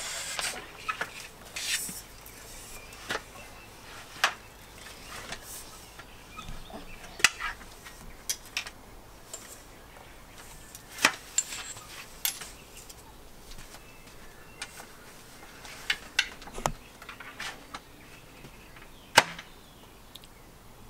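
Folding metal-framed camping chairs being unfolded and set down: a dozen or so sharp clicks and clacks at irregular intervals as the frames open and lock into place.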